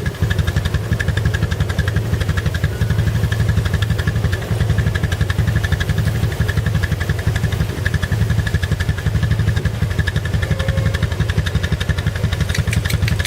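Four-wheeler (ATV) engine running steadily, its exhaust pulsing evenly.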